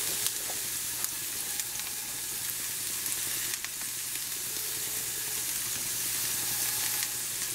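Diced onion and garlic sizzling in olive oil in a cast iron skillet over medium heat: a steady hiss with small crackles and pops scattered through it.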